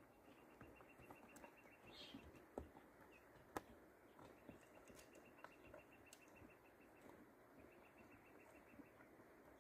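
Near silence: faint outdoor quiet with a faint, fast, high trill that comes and goes, a brief higher chirp about two seconds in, and a few soft clicks.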